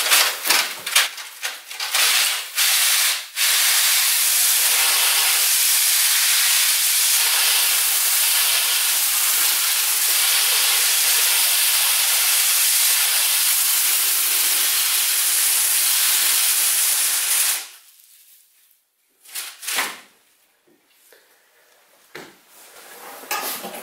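Rotary chimney-cleaning brush on flexible rods, spun by a cordless drill inside a steel stove pipe: a steady, even scraping hiss as the bristles scrub soot and creosote off the pipe wall. It starts a few seconds in after some knocks and plastic rustling, and stops suddenly about fourteen seconds later.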